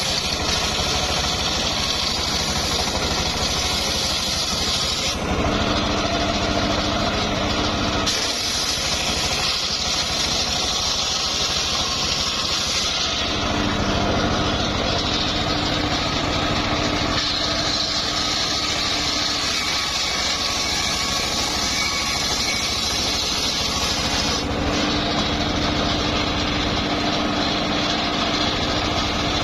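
Homemade circular sawmill running loudly and steadily while sawing old mahogany. Its tone shifts abruptly every few seconds, about four times.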